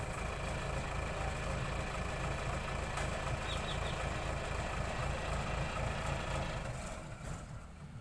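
Backhoe loader's diesel engine idling steadily with a low hum, growing quieter near the end.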